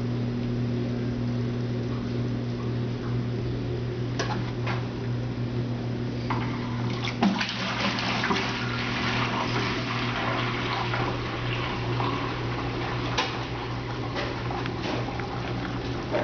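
Brastemp Ative washing machine draining at the end of its wash: water rushes and sloshes out under the steady hum of the drain pump, with a few sharp clicks along the way.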